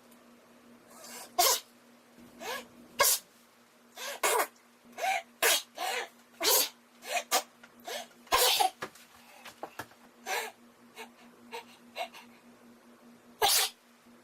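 A man acting out a rapid string of short, sharp sneezes, about fifteen in irregular succession.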